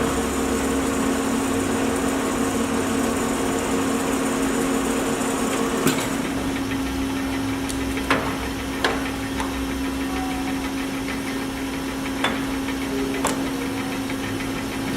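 Monarch geared-head lathe running in a slow speed range: a steady mechanical hum. About six seconds in, a sharp click comes and part of the gear whine stops. Several more short clicks or knocks follow.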